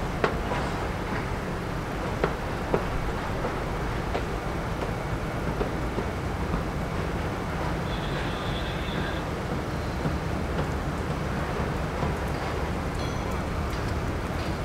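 Steady outdoor rumble of road traffic and engines, with a few faint clicks early on and a brief high tone about eight seconds in.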